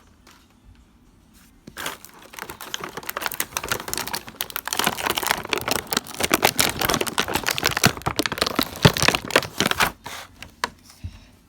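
Plastic packaging being handled and crinkled: a dense run of quick, irregular crackles and clicks that starts about two seconds in and stops about a second and a half before the end.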